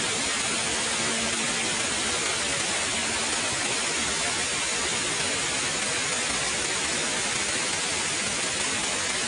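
Waterfall: water pouring and rushing in a steady, even hiss that does not change.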